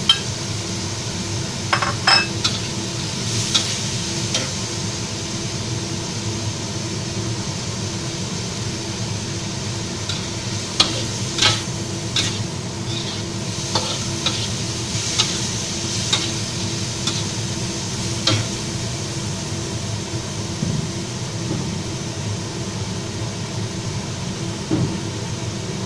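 Pork, onion and celery stir-frying in a wok with a steady sizzle, and a metal spatula scraping and clinking against the wok every few seconds as the food is tossed.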